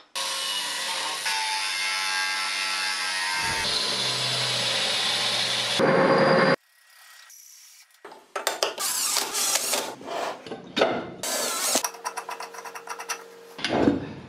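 A power tool runs steadily for about six seconds and then stops. After a short pause comes a quick series of metal clicks and clanks as steel parts are handled and fitted together.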